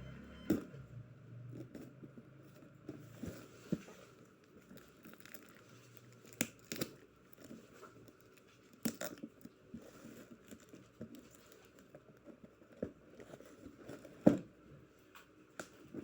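Parcel packaging being handled and opened: crinkling and tearing, with scattered sharp clicks and taps, the loudest about 14 seconds in.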